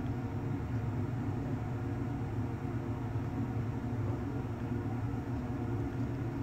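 A steady low hum and rumble, even throughout, with no distinct clicks or knocks.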